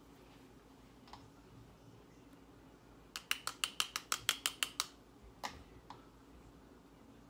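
Light, sharp clicks from handling shotshell reloading components at the bench: a quick run of about a dozen clicks, about seven a second, a few seconds in, then two single clicks.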